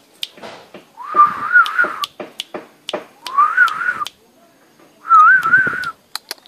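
A person whistling to call a puppy: three whistles, each about a second long with a warbling pitch, with a few sharp clicks between them.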